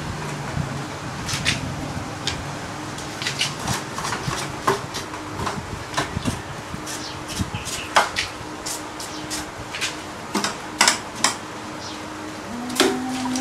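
Irregular plastic clicks and knocks as the parts of a disassembled Epson L120 inkjet printer are handled, over a steady hum from an electric fan.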